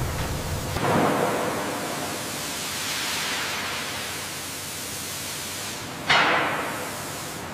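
Water sprays quenching a red-hot steel plate, a steady rushing hiss of water and steam. It swells suddenly about a second in and again, louder, about six seconds in.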